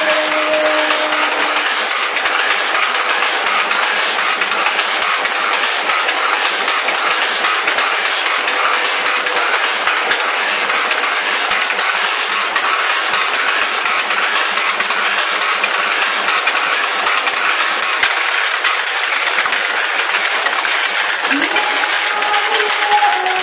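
Dense, steady clicking and chattering from a thorana's lamp-sequencing rig: a motor-driven wooden drum with copper contact strips turns under its brushes while rows of relays switch the bulbs on and off.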